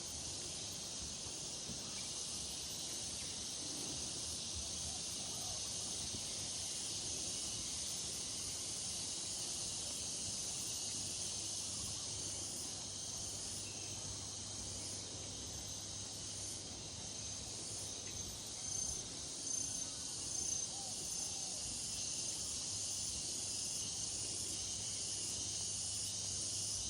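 Dense chorus of insects, a steady high-pitched shrill buzz, with a short series of high chirps about two-thirds of the way through.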